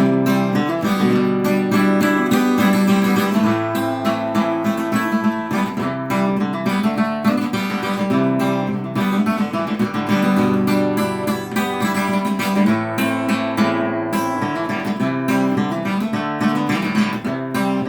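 Acoustic guitar strummed steadily in an instrumental outro, with no singing.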